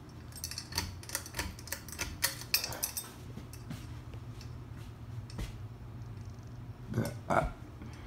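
A rapid run of light clicks and rattles for about three seconds, over a steady low hum. A brief voice sound comes about seven seconds in.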